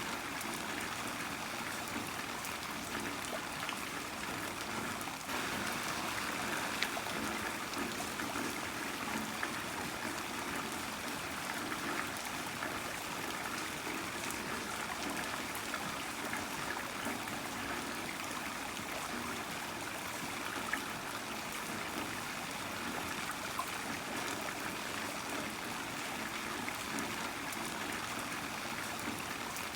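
Heavy rain falling steadily: an even hiss of water with a few sharper drop ticks.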